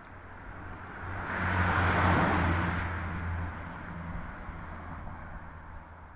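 A vehicle passing by, its engine and tyre noise swelling to a peak about two seconds in and then fading away.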